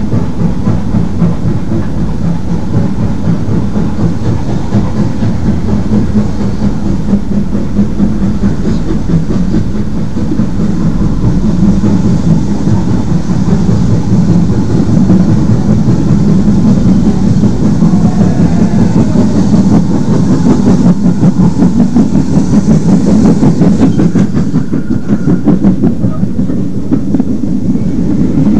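Steam locomotive working a passenger train, rhythmic and growing louder about halfway through as it draws near. Near the end its coaches roll past close by, with wheels clicking over the rail joints.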